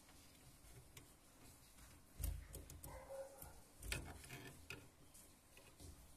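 DDR2 desktop RAM module being pressed into its motherboard slot: faint ticks and knocks, with two sharper clicks about two and four seconds in as the slot's retaining clips snap shut.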